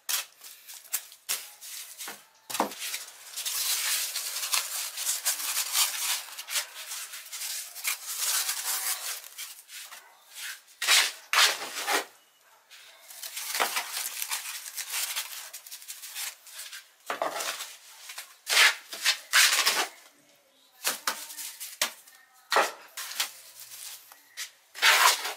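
Irregular scraping and rubbing, in long strokes at first and then short separate strokes with gaps between them.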